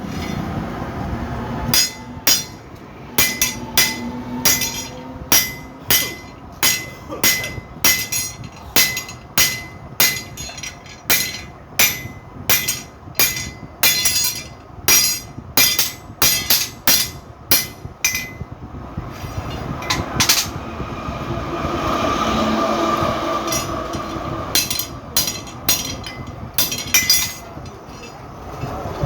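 Metal struck over and over at an even pace, about one and a half blows a second, each blow ringing briefly. Partway through, the blows stop while a steadier humming sound swells and fades for a few seconds, then a few more blows follow.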